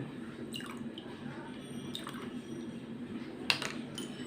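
Vanilla essence being spooned into buttermilk: a few light clicks and taps of a metal teaspoon and bottle, the sharpest about three and a half seconds in, with small liquid drips over a low steady hum.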